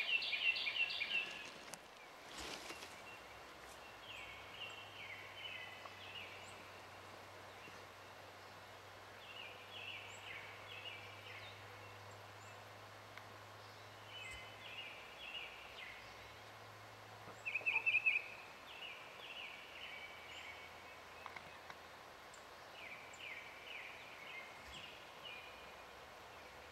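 A songbird singing the same short phrase of quick descending notes every few seconds, loudest at the start and again about two-thirds of the way through, over quiet woodland ambience.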